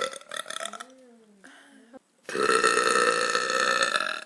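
A woman burping. A loud burp ends just after the start, a softer wavering sound follows, and then one long, loud burp of about two seconds begins just over two seconds in.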